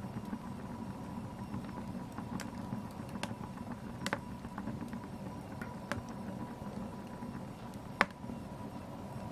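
Wood fire crackling in a fireplace: a steady low rumble of burning with a faint steady whistle-like tone, broken by a few sharp pops, the loudest about eight seconds in.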